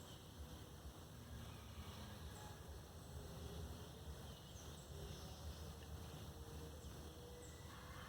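Faint forest ambience: a steady low rumble with a few short, faint bird chirps scattered through it.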